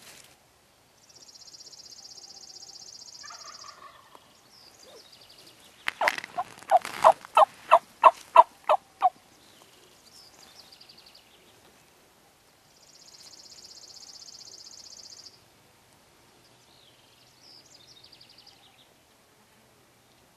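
Wild turkey yelping: a loud series of about ten evenly spaced yelps at roughly three a second, lasting about three seconds. A songbird's high buzzy trill sounds twice, each for about two seconds, with fainter bird chirps between.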